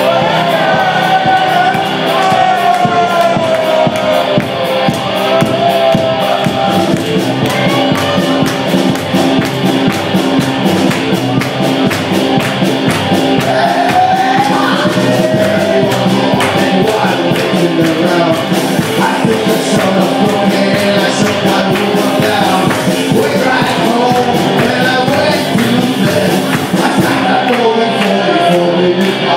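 Live rock band playing a country-blues song: a male singer sings over electric guitars and drums with a steady beat.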